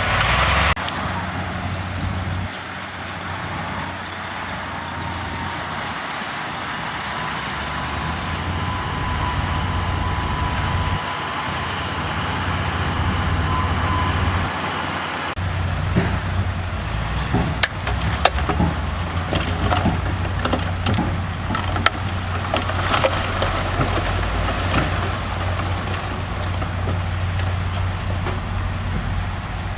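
Diesel engines of heavy earthmoving machinery running under load, with a thin steady whine through the first half. About halfway the sound changes, and scattered clanks and knocks follow.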